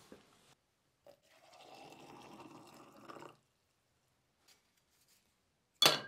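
Water poured from a glass electric kettle into a glass beaker of oxalic acid crystals for about two seconds, mixing the acid bath. Near the end comes a single sharp clink, the loudest sound.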